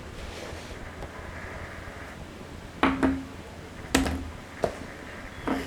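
About five sharp clicks and light knocks of hard plastic kit parts and runners being handled and set down, clustered in the second half.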